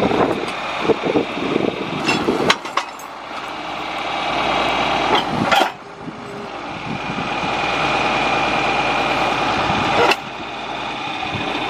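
Old tractor engine running steadily, with a few sharp metallic knocks about two and a half, five and a half and ten seconds in.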